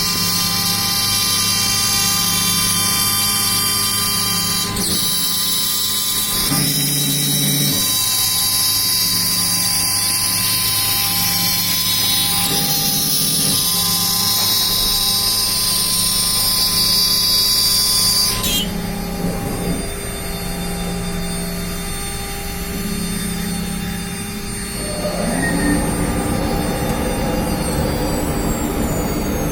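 CNC router cutting MDF: a high spindle whine with the cutting noise, over low motor tones that shift pitch every second or two as the machine moves. About eighteen seconds in, the high cutting noise stops abruptly, and near the end a tone slides steadily down in pitch.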